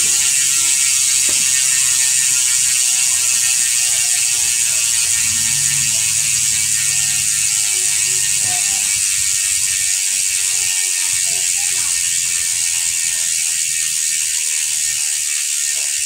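Sword SWO2.3 six-pawl rear freehub buzzing as the rear wheel coasts with the pedals still: a fast, steady, high clicking of the pawls over the ratchet, slowly getting quieter as the wheel slows.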